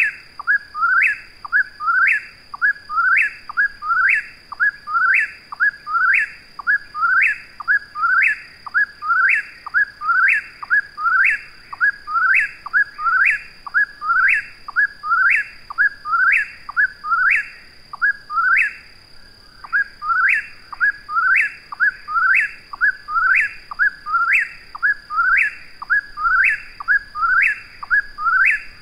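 Eastern whip-poor-will singing: its whistled "whip-poor-will" phrase repeated over and over in a steady, unbroken rhythm.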